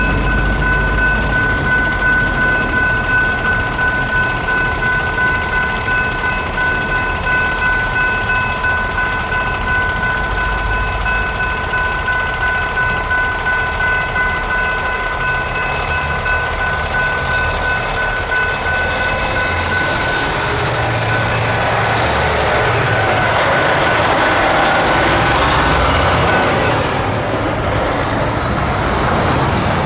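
Railroad crossing electronic bells (General Signals Type 3) ringing in a fast, steady repeating ding. From about two-thirds of the way in, a rumbling, hissing noise builds up, and the bells stop near the end.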